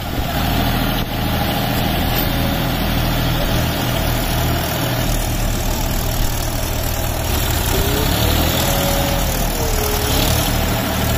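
Tractor engine idling steadily, a deep even drone, with a faint tone rising and falling about eight seconds in.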